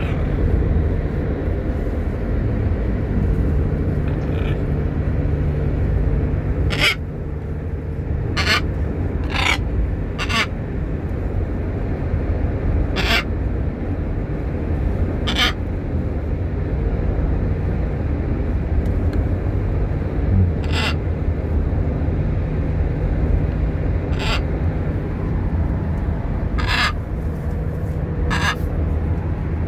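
A parrot calling: about ten short squawks at irregular intervals, over a steady low background rumble.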